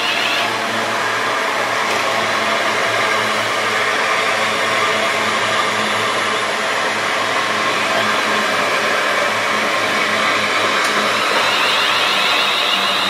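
A London Northwestern Railway Class 350 Desiro electric multiple unit running past at speed, with a steady loud rush of wheels on rail and air. A high electric whine from its traction equipment is heard at the start and again near the end.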